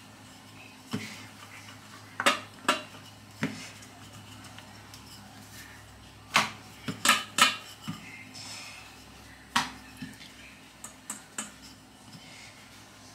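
Wooden rolling pin knocking and clattering on a bamboo cutting board while dough is rolled out: a dozen or so irregular sharp knocks, the loudest in a quick cluster about halfway through.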